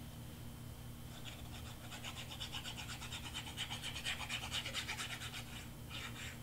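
Glue bottle's precision tip drawn along the edge of a cardstock piece while glue is squeezed out: a fast, scratchy ticking that starts about a second in and stops shortly before the end.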